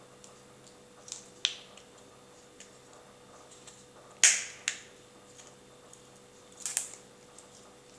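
Sharp clicks and snaps of hard plastic as the two shell halves of a plastic mussel lure are handled and pressed together, a few scattered clicks with the loudest snap about four seconds in.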